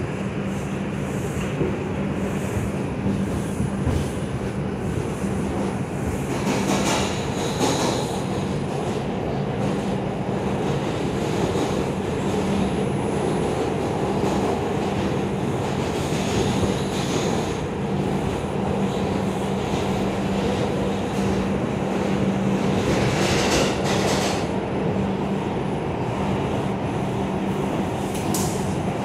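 Inside an R142 subway car running at speed through a tunnel: a continuous loud rumble of wheels on rail under a steady low hum. Brief rushes of high-pitched wheel noise come about seven seconds in, again around twenty-three seconds, and once more just before the end.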